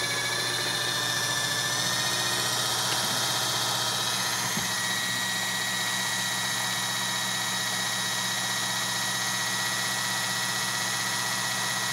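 Small wind generator on a test bench, spun by a drive motor, running with a steady mechanical whine that rises in pitch over the first few seconds as it is sped up, then holds at the higher speed.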